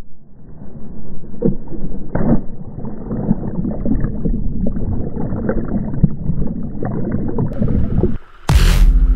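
Rushing whitewater with scattered splashes around the kayak, sounding dull and muffled. Near the end the water sound drops away and an electronic music track cuts in with a loud hit.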